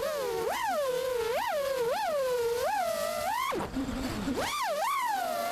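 FPV quadcopter's brushless motors and propellers whining, the pitch rising and falling with repeated throttle punches about once or twice a second. The whine briefly cuts out a little past the middle, as on a throttle chop, then picks up again.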